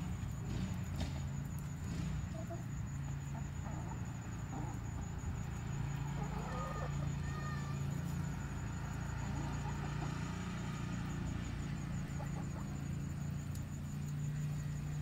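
Backyard hens clucking quietly now and then as they scratch and peck through a compost pile, over a steady low rumble.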